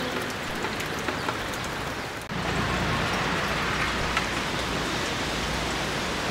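Steady rain falling, with scattered drops ticking. A little over two seconds in, it gets slightly louder and deeper.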